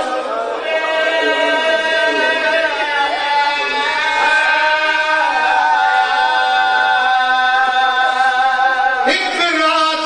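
A man's voice chanting a zakir's sung recitation in long, wavering held notes, amplified through a microphone. The sound changes abruptly about nine seconds in.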